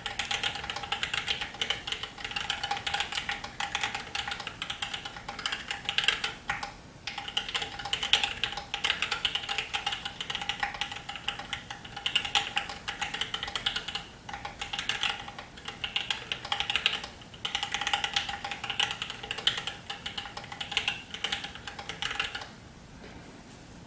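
Typing on an Alice-layout mechanical keyboard with Thic Thock Marshmallow linear switches, a copper plate, a frosted acrylic case and GMK keycaps. A steady run of keystrokes with a few brief pauses, stopping near the end.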